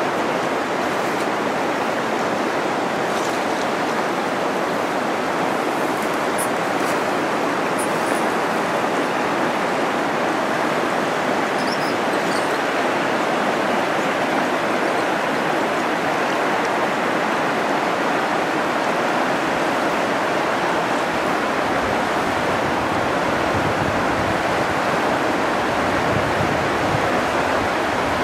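River water rushing over shallow rapids, a steady, even rush, with some low wind buffeting on the microphone in the last few seconds.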